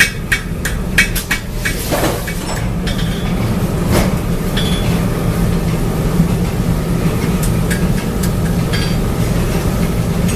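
Metal being hammered in a tool-forging factory: quick repeated strikes, about three a second, that stop about a second and a half in, over a steady hum of factory machinery, with a few single clanks later on.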